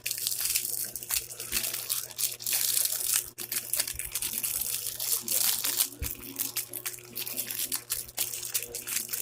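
Plastic packaging of a speed cube crinkling and rustling as it is handled and unwrapped, with many small crackles and clicks.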